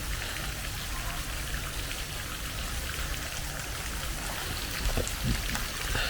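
Steady, even hiss of light rain falling, with a few faint drips.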